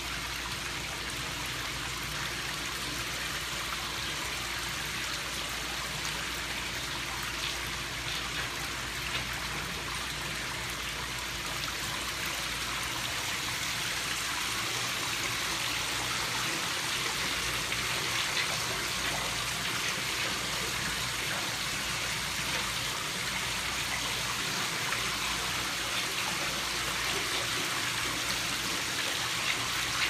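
Steady running and trickling water from the trout exhibit's stream tank, getting a little louder about halfway through.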